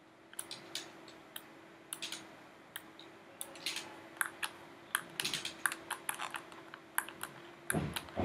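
Computer keyboard typing: irregular sharp key clicks, several a second, coming thicker from about three seconds in, over a faint steady hum.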